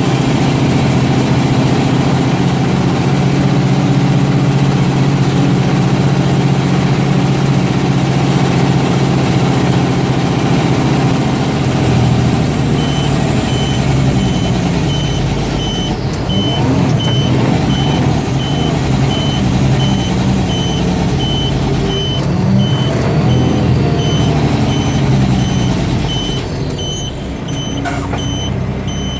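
Diesel engine of an old Mack DM690 concrete mixer truck running, its pitch shifting somewhat in the second half. From about halfway a back-up alarm beeps at a regular pace, roughly once a second.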